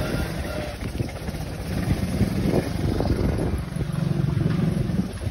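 Vespa scooter's engine running while riding along a dirt path, easing off about a second in and then picking up again.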